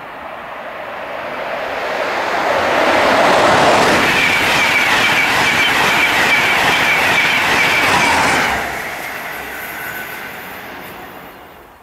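Virgin East Coast express passenger train passing through a station at speed. The rumble builds as it approaches, stays loud with a high steady whine for about five seconds as the coaches go by, then drops sharply and fades away.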